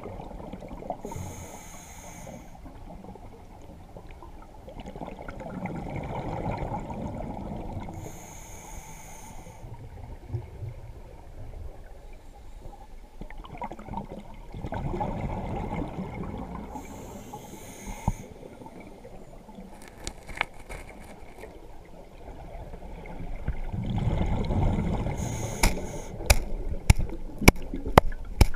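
Scuba diver breathing through a regulator underwater: about four breaths, each a short high hiss on the inhale followed by a longer rush of exhaled bubbles. Several sharp clicks and taps come in the last few seconds.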